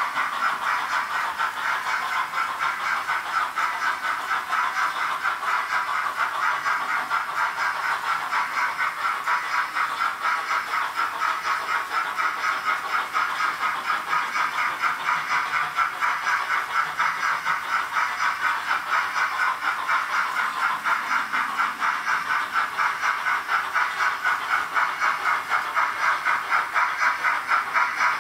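Roco HO-scale model steam locomotive's DCC sound decoder playing steady, rhythmic steam chuffing with hiss through the model's small speaker.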